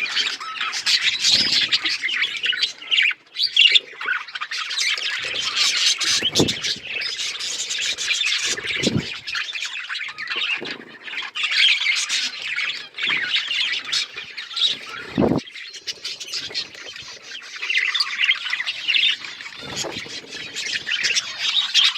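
A colony of budgerigars chattering and squawking continuously, many birds calling over one another, with a few short low thuds.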